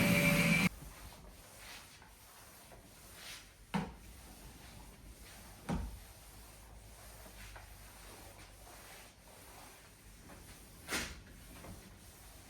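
A loud steady whirring cuts off abruptly under a second in. Then a few short knocks and some rubbing as things are handled and set down.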